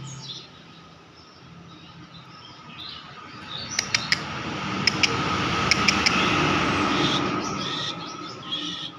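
Small bird chirps in short calls, with several sharp clicks and a swell of rustling noise in the middle.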